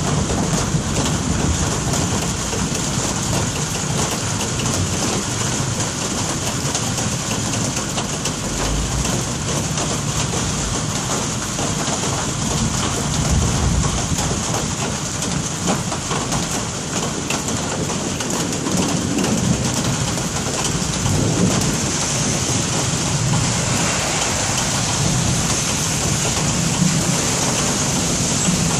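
Steady rain falling, with low rumbles of thunder now and then, strongest about a third of the way in and again around halfway.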